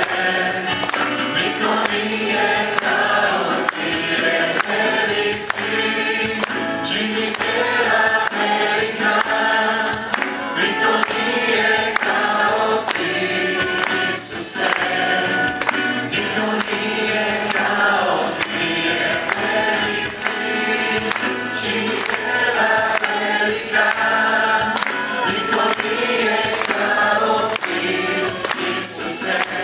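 A group of voices singing a worship hymn together, sustained and continuous.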